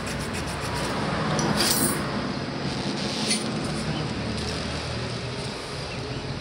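Light metallic clinks and handling noise from a car window regulator's steel cable and parts being worked by hand, over a steady background hiss. The sharpest clink comes about one and a half seconds in, another about three seconds in.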